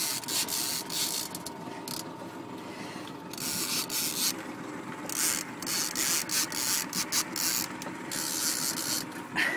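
Fishing reel clicking and ratcheting in runs with short pauses, worked against a salmon hooked on the line.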